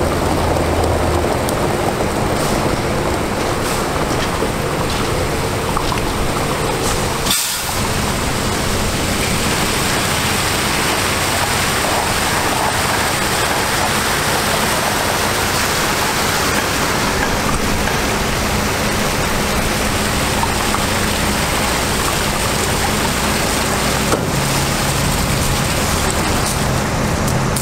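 Water gushing from a water truck's rear spray bar onto gravel, a steady rushing hiss, with the truck's International DT466 diesel engine running underneath. There is a brief break about seven seconds in.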